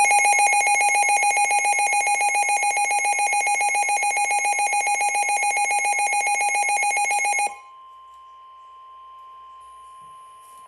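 Midland WR400 weather radio's built-in alert alarm, loud and rapidly pulsing, lasts about seven and a half seconds and then cuts off. A much quieter, steady 1050 Hz NOAA Weather Radio warning tone follows. It is the broadcast's alert tone ahead of a severe thunderstorm warning.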